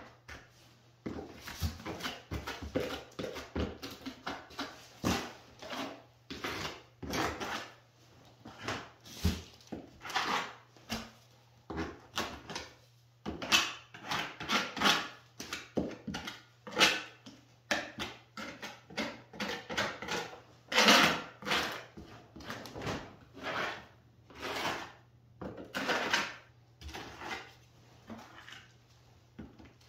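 A small hand trowel scraping and pressing Structolite plaster into wood lath in short, irregular strokes, about one a second: the base coat being scratched in tight so it keys in behind the lath. A faint steady low hum runs underneath.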